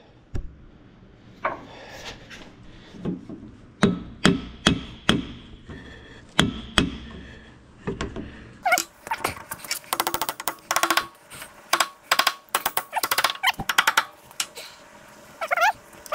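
Hand sledge hammer striking the steel clevis and mounting pin of a hydraulic cylinder on a Galion 125 crane, knocking the pin home through the rod eye. Spaced single blows at first, then from about nine seconds a quick run of harder, ringing metal strikes.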